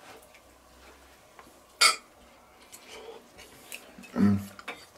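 Fork and plate: one sharp clink of the fork against the plate a little under two seconds in, with faint scraping and small ticks of cutlery, and a short low hum from the person eating near the end.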